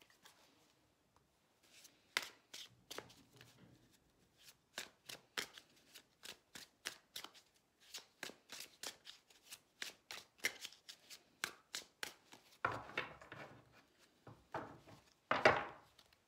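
Tarot deck being shuffled by hand: a run of quick card clicks and flicks, about three a second, with two louder rustling swishes of the cards near the end.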